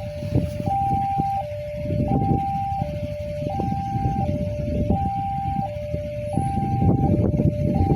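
Railway level-crossing barrier alarm sounding its hi-lo siren, switching evenly between a higher and a lower note, each held under a second. A low rumble runs underneath and grows louder near the end.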